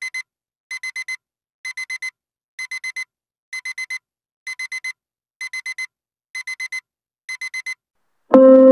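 Electronic alarm beeping in quick bursts of four short, high beeps, about one burst a second, going off to wake a sleeper. Music starts just at the end.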